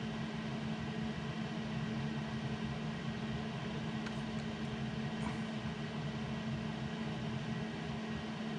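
A steady mechanical hum with a constant low tone and hiss, like a small fan or motor running at the workbench, with two faint ticks about four and five seconds in.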